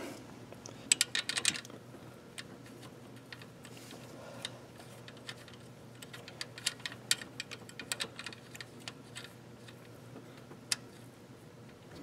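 Scattered light clicks and ticks of hand work on a glow plug being fitted into the cylinder head of a 7.3L Powerstroke diesel, bunched about a second in and again between about six and nine seconds, over a faint steady hum.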